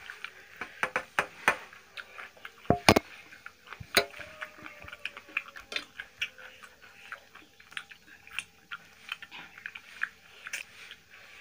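Close-up eating sounds: chewing and mouth clicks, and fingers working rice and curry on stainless-steel plates. A few sharper knocks on the steel come about three and four seconds in, and the one at four seconds leaves a short ring.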